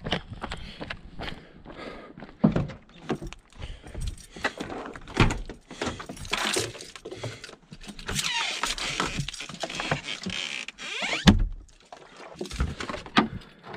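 Footsteps up to a pickup truck, then a bunch of keys jangling as its rear cab door is opened. Rustling and knocks follow as things are moved around inside the cab, with one loud thump a little past eleven seconds.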